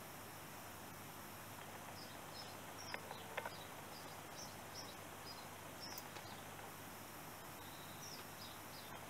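Faint steady hiss with many soft, short high chirps scattered through it, and two small clicks about three seconds in.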